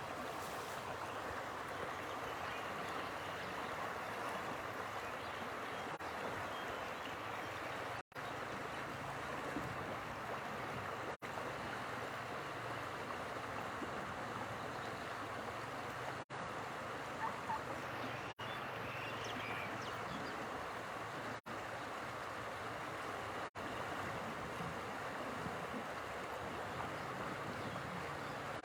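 Steady rush of flowing water, broken several times by brief cuts to silence.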